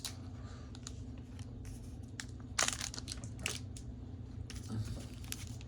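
Scattered crinkles and rustles of Pokémon trading cards and their foil pack wrapper being handled, a few sharp strokes near the middle, over a steady low hum.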